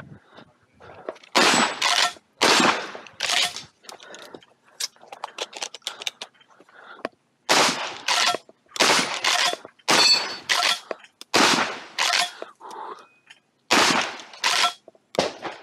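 12-gauge shotgun (a Templeton Arms T1000) firing about a dozen shots in quick pairs and short strings, often about half a second apart. Quieter mechanical clicks come between the strings as the action is worked. There is a gap of a few seconds after the first four shots.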